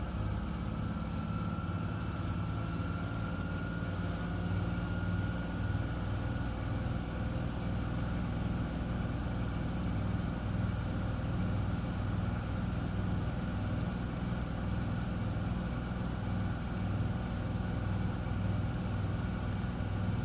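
Miele W1 front-loading washing machine in its interim spin after the main wash: motor and drum running steadily, with a low hum that pulses in a regular rhythm. A faint motor whine rises slightly over the first few seconds.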